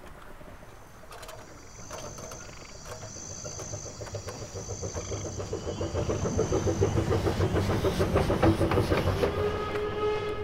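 Steam locomotive chugging in a fast, even beat that grows steadily louder as it approaches, an animation soundtrack effect.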